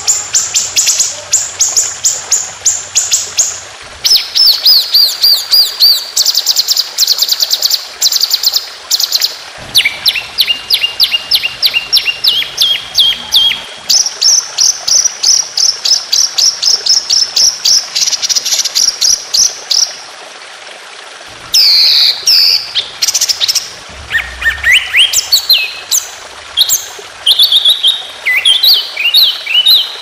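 Songbird singing long, fast trills of rapidly repeated sharp notes, the 'tembakan' bursts that bird-contest keepers prize. Some runs hold one high pitch and others step down or swoop, with a short break about twenty seconds in.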